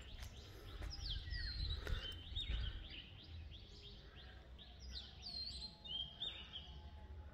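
Small birds chirping: a steady run of short, quickly sweeping whistled notes from more than one bird, over a low rumble.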